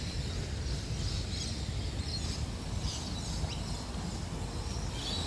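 Birds chirping here and there over a steady low outdoor rumble.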